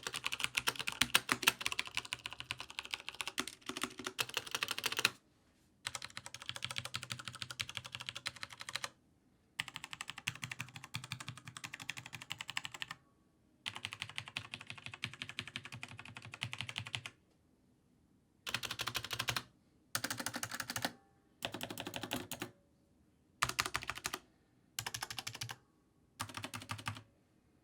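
Typing on a mechanical gaming keyboard with tactile, non-clicky switches. It opens with a fast, continuous run of keystrokes, then comes in separate bursts of typing with short pauses between them, the bursts growing shorter near the end.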